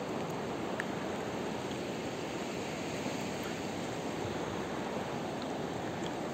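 The Sesia, a mountain river, rushing over its stony bed in a steady, even noise.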